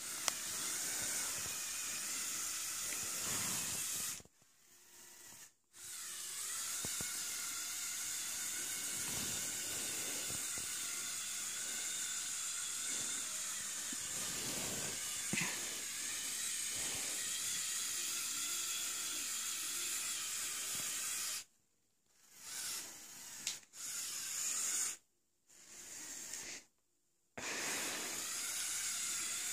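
Electric motors and plastic gearing of a motorised Lego Technic 42009 mobile crane running with a steady whirring hiss. The sound cuts out about four seconds in for over a second, then stops and starts in short bursts from about twenty-one seconds before running steadily again.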